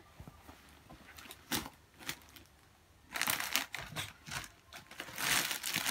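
Folded dress fabric being handled and shifted: a few soft taps in the first half, then bouts of rustling and crinkling from about three seconds in.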